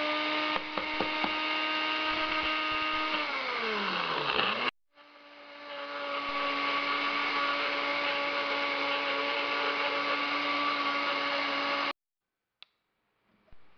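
NutriBullet blender motor grinding dried bitter melon leaves and vines into powder. It runs steadily, then its pitch sinks as it winds down a few seconds in; about a second later it starts again and runs steadily until it cuts off suddenly near the end, followed by a single click.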